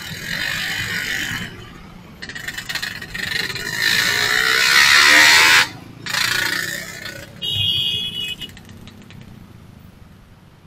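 Motorcycle and car traffic in a stop-and-go jam, heard from a moving scooter: a steady low engine rumble under loud rushing surges that swell and then cut off abruptly, with a brief high tone about three-quarters of the way through.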